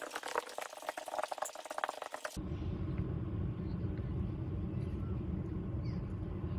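About two seconds of quick light clicks and taps on a hardwood floor as a puppy moves among scattered kibble, then a sudden switch to a steady low outdoor rumble.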